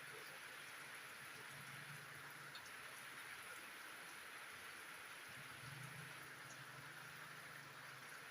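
Steady rain falling, a faint, even hiss of rain on water and surfaces.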